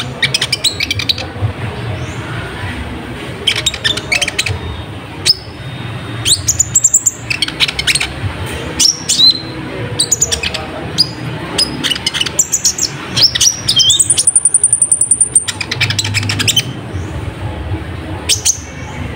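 Sunbird (kolibri ninja) song: quick, sharp high chirps and twittering phrases in repeated bursts, with one long, high, buzzy trill about fourteen seconds in.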